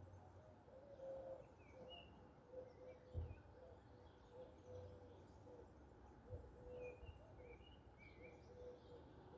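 Faint, low cooing of a dove, its hoots repeated in short notes, with brief high chirps from small songbirds. A soft low thump comes about three seconds in, and another past the six-second mark.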